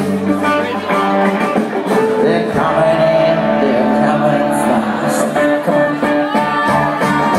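Live country band playing loud, with singing over the instruments.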